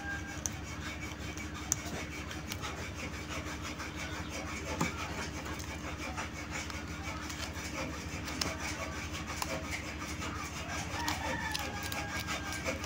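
A knife blade scraping the contacts of a small massager switch to clean them, in repeated light scraping strokes.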